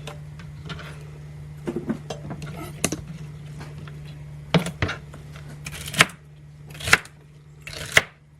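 Kitchen knife chopping celery on a cutting board: separate sharp knife strikes, a few scattered ones at first, then about one a second in the second half.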